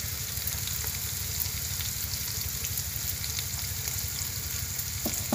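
Onion, tomato and spice masala frying in ghee in an aluminium pot over a wood fire, sizzling steadily.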